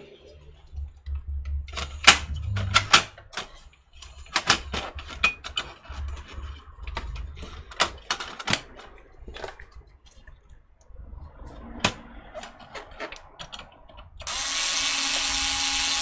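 Metal clicks and knocks as a sheet-metal drive caddy carrying a slim optical drive is seated and pressed into a desktop PC chassis. Near the end, a Bosch cordless electric screwdriver runs steadily for about two seconds, driving a screw.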